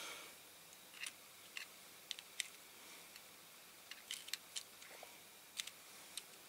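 Faint, light clicks and ticks of small plastic and diecast metal model-car parts being handled and fitted together, about a dozen at irregular intervals.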